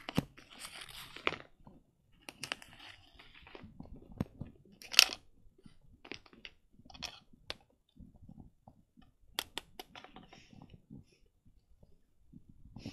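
Taps, clicks and rustling from plastic toy pony figures being handled and moved over a rug close to the microphone, with a sharp tap about five seconds in.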